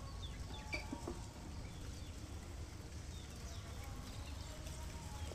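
Outdoor ambience: faint chirps of small birds over a steady low wind rumble on the microphone, with a few light clicks about a second in.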